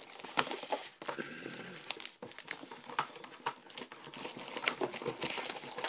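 Wrapped trading-card packs crinkling and rustling as they are handled, lifted out of a cardboard box and stacked, with many short sharp crackles and clicks.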